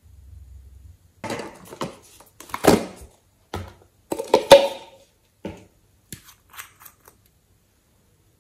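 Crinkling, crackling and clicking of plastic being handled, in irregular bursts that are loudest about three and four and a half seconds in and die away after about seven seconds.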